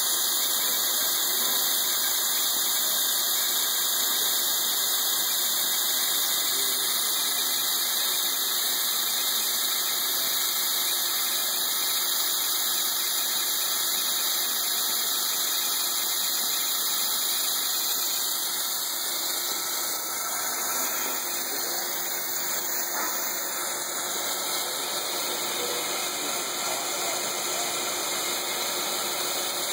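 BOKO RS1V-E vertical milling machine running, its end mill cutting a metal plate under flood coolant: a steady machine hum with a dense hiss, even throughout and easing slightly about two-thirds of the way in.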